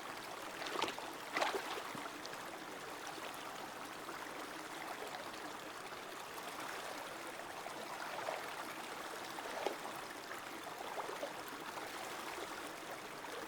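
River water flowing steadily over rocks, with a couple of sharp knocks about a second in.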